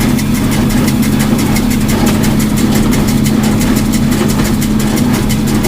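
Farm tractor engine running steadily while driving a small square baler through a hay windrow, with a fast, even ticking over the engine hum.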